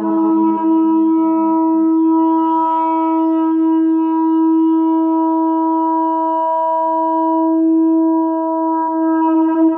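Shofar (ram's-horn trumpet) sounding one long, steady blast held for about ten seconds, with a rich buzzy overtone series, wavering slightly near the end.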